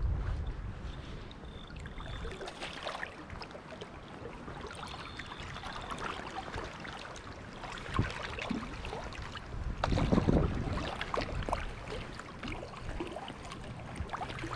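Shallow stream water running over riffles, a steady rushing wash, with a sharp knock about eight seconds in and a louder burst of noise around ten seconds.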